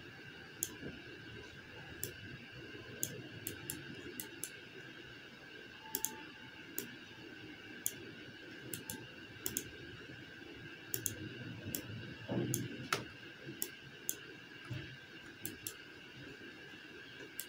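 Computer mouse clicking irregularly, about twenty single and double clicks while points are picked on screen, over a faint steady hum. A short low rustle a little past twelve seconds.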